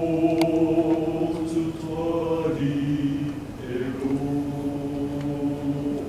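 Male vocal quartet singing a Taiwanese Hokkien hymn in harmony, holding long chords that shift twice. There is a brief click about half a second in.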